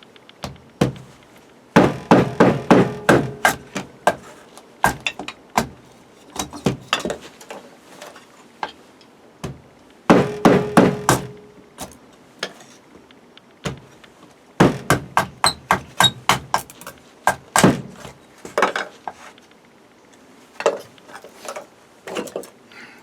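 Wood being chopped into kindling: runs of quick, sharp chopping strikes into wood, several a second, with pauses and single knocks between the runs.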